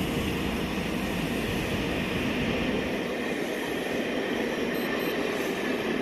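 A passenger train passing through the station at speed, a steady rumble and rush of wheels on the rails.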